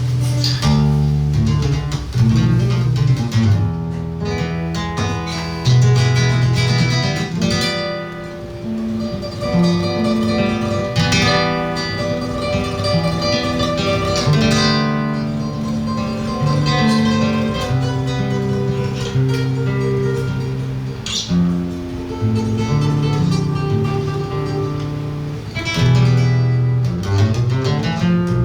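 Live flute and seven-string guitar duo playing, the guitar plucking a moving low bass line and chords under held melody notes.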